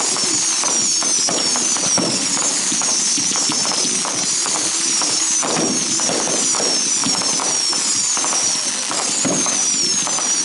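Consumer fireworks going off: shrill whistles, one after another, each falling in pitch, over dense crackling and popping.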